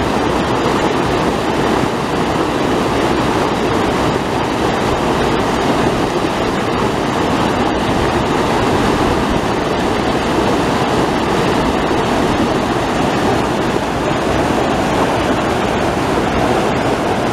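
River water rushing and churning white over a low weir of rocks and concrete blocks, a loud, steady rush.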